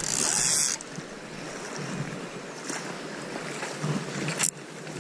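Fast, high-running river water rushing steadily, with some wind on the microphone. A loud burst of hiss fills the first second, and a single sharp knock comes near the end.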